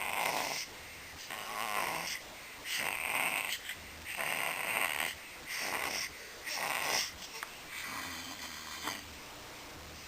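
Teething baby making a string of raspy, breathy, snore-like noises, about six bursts each under a second long, a sound the parent takes for frustration.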